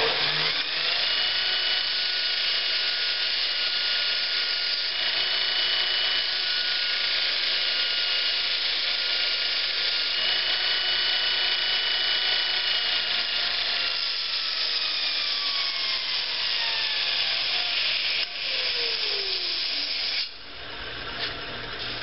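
Bench grinder with a Multitool belt attachment: the motor's whine rises to speed at the start. A steel lawn mower blade is ground against the 80-grit belt on the front contact wheel in sharpening strokes, a steady grinding hiss over the whine. The whine slowly falls in pitch over the last several seconds, and the grinding drops away about two seconds before the end.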